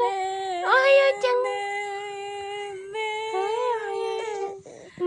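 Baby crying in long, drawn-out wails, each held on a fairly steady pitch, with short catches of breath between them.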